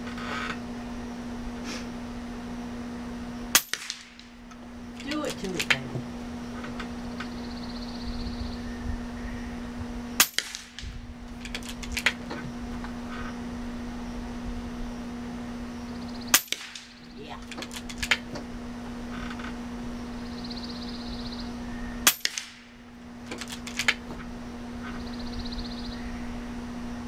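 Four shots from a .25-calibre Cricket PCP air rifle, about six seconds apart, each a sharp crack followed by a few softer clicks.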